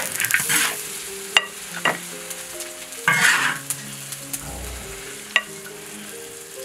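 A spatula stirs and scrapes cumin lamb chops sizzling in a large wok for about the first second. Then soft background music with held notes takes over, with a few sharp clinks and another short burst of stirring about three seconds in.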